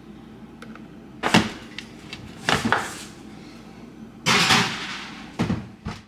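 A series of handling sounds: about five sudden knocks and bumps spread over several seconds, some trailing into short rustling noise.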